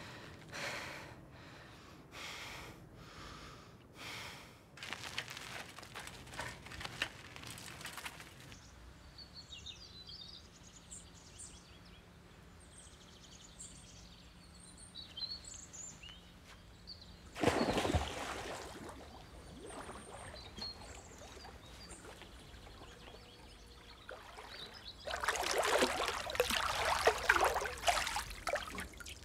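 Small birds chirping, with one loud thud a little past halfway. Near the end, water splashes and laps as someone moves in a swimming pool.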